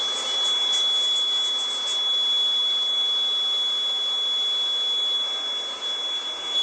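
A steady high-pitched electronic tone held without a break over a constant rushing background noise.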